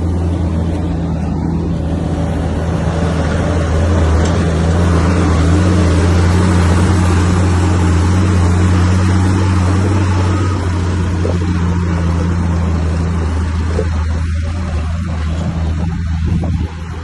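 Komatsu bulldozer's diesel engine running under load with a steady low drone, swelling a few seconds in, easing off, then dropping suddenly near the end.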